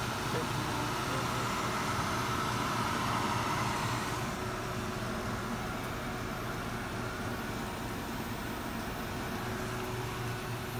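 Jetrion 4830 digital label press running: a steady machine hum with fan-like hiss as the printed web feeds through, the hiss easing slightly about four seconds in.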